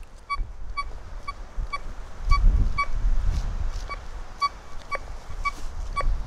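Golden Mask Coin Killer metal detector with a 9-inch Spider coil giving a train of short identical beeps, about two a second, as the coil sweeps over a clay pot of coins buried 70 cm deep: a clean, repeatable target signal.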